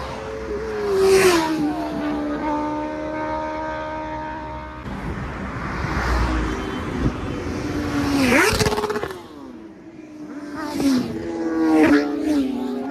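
Motor vehicle engine running and revving, its pitch swooping sharply up and down several times.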